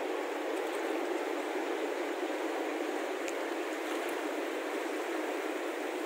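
Steady rush of flowing mountain-stream water, an even hiss with no break, with a few faint ticks.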